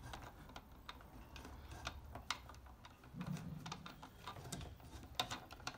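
Faint scattered clicks and rustles of two twisted sensor cables being pushed by hand through a cable gland into a plastic controller enclosure, with a sharper click near the end.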